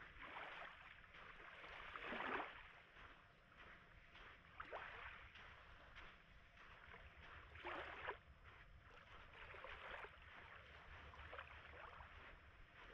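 Faint small Baltic Sea waves washing in, swelling about two seconds in and again about eight seconds in.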